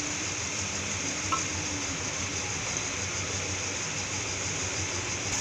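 Beaten eggs sizzling steadily in hot oil in a steel kadhai, just poured in to fry.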